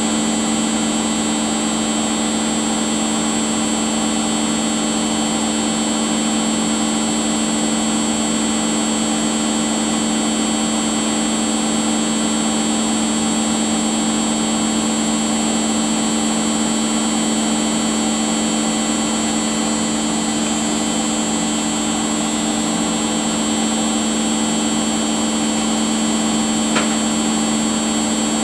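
Domestic appliance motor running steadily, a constant hum with a high whine above it, and one short click near the end.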